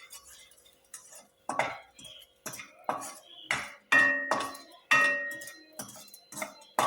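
Metal spoon clinking and scraping against a metal pan as spices are stirred and roasted in ghee. The strikes are irregular, with a couple of louder ringing knocks about four and five seconds in, over a faint steady hum.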